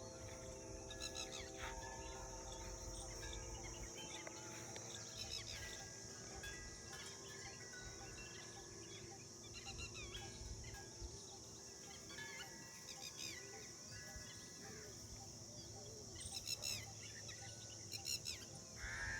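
Outdoor nature ambience: birds chirping here and there over a steady high-pitched insect drone. The chirps grow busier near the end.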